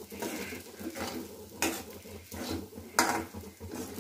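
A metal spatula stirring sago pearls and potato in a metal kadhai, scraping and clinking against the pan, with two louder scrapes about one and a half and three seconds in.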